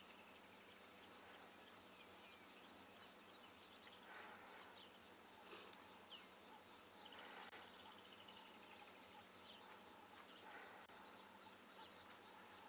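Faint outdoor ambience: insects chirring with rapid high ticks throughout, and a few brief bird chirps.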